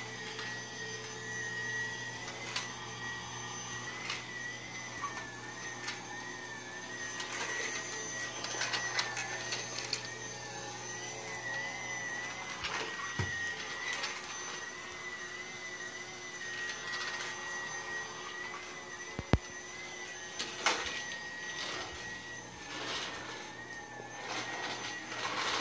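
Toy vacuum cleaner running: a steady whirring hum with a high, wavering tone, and a few sharp knocks as it is pushed along.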